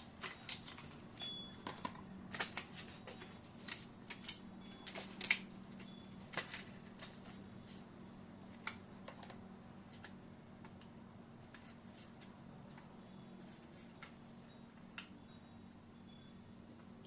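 Small sharp clicks and taps of hard parts being handled while an M.2 SSD is fitted to a motherboard, thick in the first seven seconds and only a few after, over a low steady hum.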